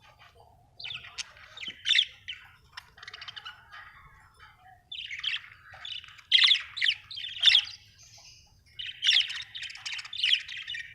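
Budgerigar chirping in three quick runs of high chirps and squawky notes, with short pauses between them.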